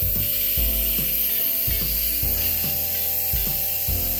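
Instant Pot pressure cooker venting steam through its release valve on quick release: a steady hiss.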